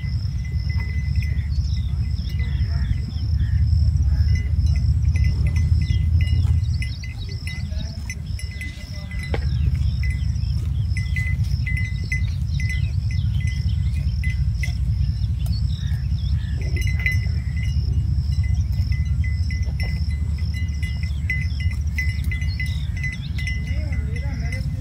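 Distant diesel locomotive engine running with a steady low rumble that dips about seven seconds in and picks up again near the ten-second mark, as a freight train departs. A steady high insect buzz and scattered bird chirps sound over it.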